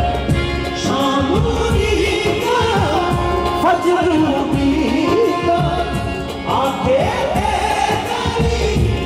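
Live qawwali: a lead singer's sliding, ornamented vocal line over steady harmonium tones and hand-drum beats.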